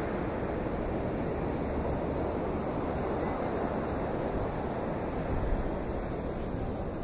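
Steady noise of storm wind and surf during a hurricane, with wind buffeting the microphone.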